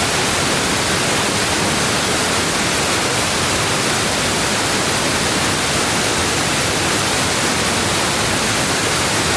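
Waterfall: a steady, even rush of falling water that holds one level throughout.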